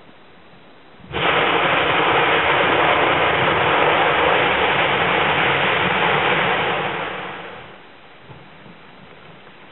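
Volcanic vent in a Strombolian-style explosion: a sudden blast about a second in, then a steady rushing noise of gas jetting glowing lava fragments for about six seconds, which fades away near the end.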